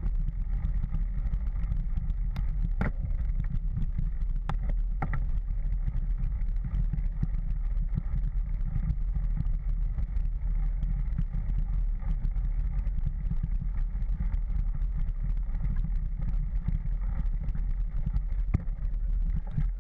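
Mountain bike riding over a leaf-covered dirt trail: a steady low rumble of wind and trail vibration on the action camera, with a few sharp clicks and rattles between about two and five seconds in and again near the end.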